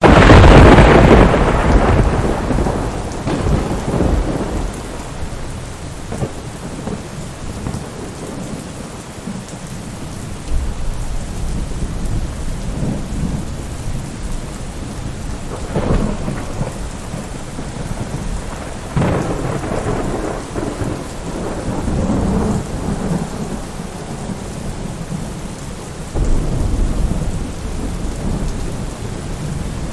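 Steady rain falling, with a loud crack of thunder at the very start that rumbles away over about two seconds, and several more rolls of thunder later on.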